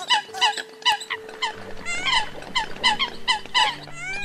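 Eurasian coot calls: short, sharp notes that drop in pitch, repeated about three times a second, with a rising squealing call twice, near the middle and near the end.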